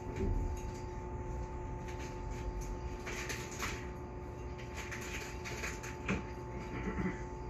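Inside a stationary JR West 221 series electric train: the onboard equipment gives a steady electrical hum, with a few brief clicks and rustles.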